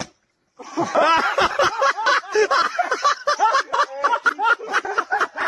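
Several people laughing hard and without a break, starting about half a second in.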